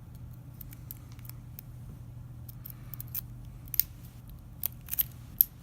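Light metallic clicking and scraping of a steel rake pick worked inside the keyway of a Master Lock 140 padlock, with several sharper clicks in the last two seconds.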